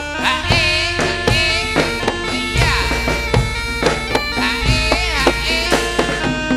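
Jaranan dance accompaniment: a reedy wind instrument, the kind of shawm these ensembles use, plays a wavering, ornamented melody over repeated drum strokes and a low sustained bass.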